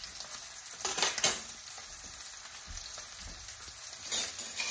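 Steaks frying in hot oil in a pan, a steady sizzle, with two short louder noises about a second in and near the end.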